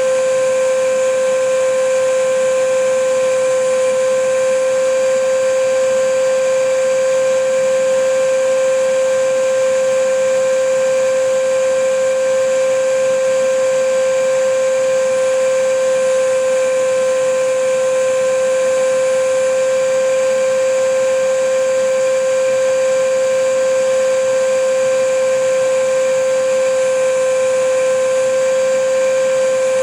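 Vacuum cleaner running steadily: a constant motor whine held at one pitch over the hiss of rushing air, with no change in speed.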